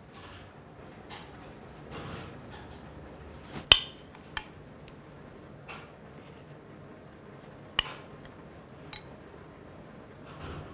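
Metal spoon clinking against a ceramic bowl and plate as stew is spooned out: a few sharp clinks, the loudest about four seconds in and another at about eight seconds, with soft handling sounds between.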